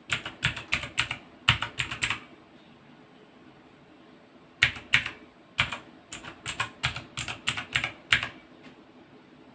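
Clicky Outemo Blue switches on a RAKK Tandus mechanical keyboard, pressed in two quick runs of keystrokes, each a sharp click. The first run lasts about two seconds, and a second, longer run starts about four and a half seconds in.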